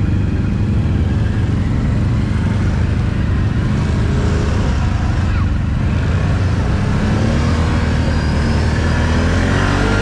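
Can-Am Outlander 1000 ATV's V-twin engine running steadily under way through mud, its pitch climbing over the last few seconds as it picks up revs.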